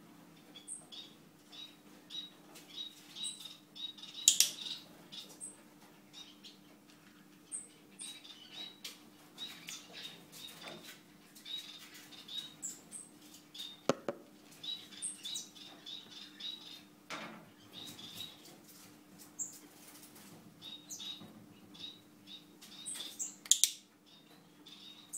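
Pet gerbil making many short high squeaks and scratchy clicks, with a few louder bursts about four seconds in and near the end and one sharp click halfway through. A steady low hum runs underneath.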